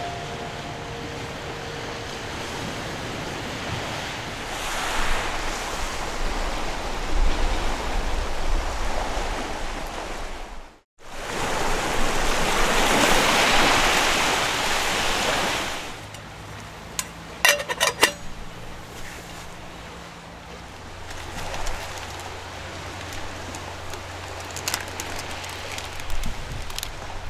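Sea waves washing onto a shore: a steady surf hiss that swells to its loudest in the middle. A few sharp clicks sound a little after the loudest wash.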